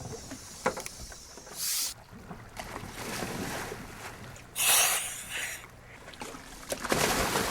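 Wind and water noise aboard a dive boat, broken by three short rushing bursts of noise.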